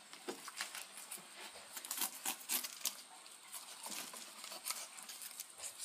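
Faint, irregular wet ticking and crackling as a freshly cut walleye fillet is handled and lifted off the carcass by hand.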